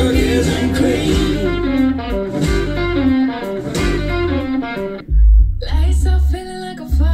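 Guitar music with a deep bass line, played through a Canton Smart A 25 three-way active floorstanding speaker as a listening test. About five seconds in the treble drops out briefly and a deep bass note hits, then bass notes pulse about once a second.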